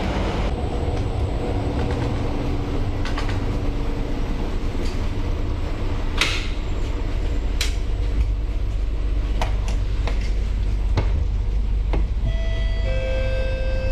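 Metro train running, heard from inside the carriage: a steady low rumble with a few sharp clicks and knocks. Near the end a whine of several steady tones comes in over it.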